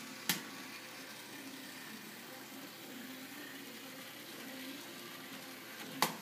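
Model trams running on Kato Unitram track with a steady low whir. Two sharp clicks, one just after the start and one near the end, are the Unitram electric switches (turnouts) snapping over.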